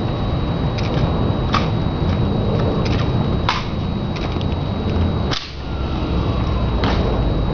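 Sharp snaps of the honor guards' ceremonial rifle drill, about five of them a second or two apart, over a steady low background noise.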